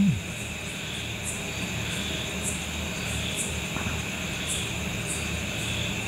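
Steady background noise with a low hum and a high hiss, and faint short high-pitched chirps repeating about once a second.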